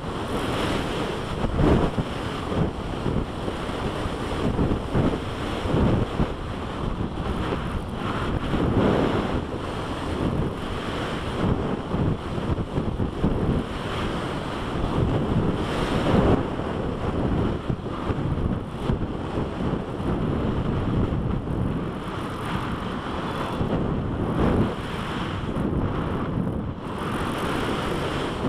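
Wind noise from airflow rushing over an action camera's microphone mounted on a flying RC sailplane's fuselage: a steady rush that swells and fades irregularly, with no clear motor whine.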